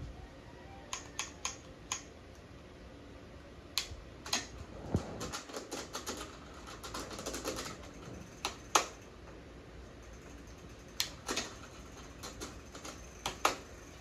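Irregular sharp clicks and metallic taps, with a quicker run of ticks about midway, from hand tools and parts being worked on during a bicycle gear and derailleur repair.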